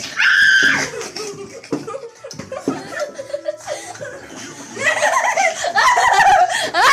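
Several children laughing hard: a loud burst of laughter at the start, quieter chuckling in the middle, then a longer bout of loud laughter from about five seconds in.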